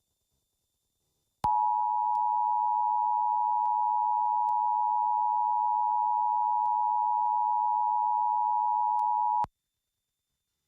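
Emergency Alert System two-tone attention signal: a steady alarm of two close pitches sounding together. It starts about a second and a half in, holds for about eight seconds and cuts off abruptly. It is the standard signal that a broadcast emergency alert message is about to follow.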